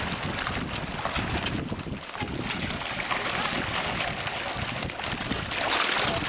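A large crowd of carp thrashing and splashing at the water surface, a continuous watery hiss that swells briefly near the end, with wind buffeting the microphone underneath.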